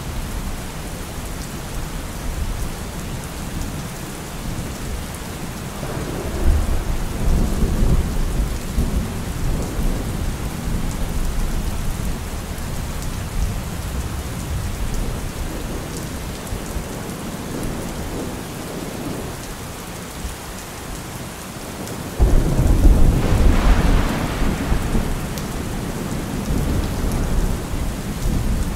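Steady rain with rolls of thunder: a low rumble builds several seconds in, and a louder thunderclap breaks suddenly about twenty-two seconds in and rumbles on for a few seconds.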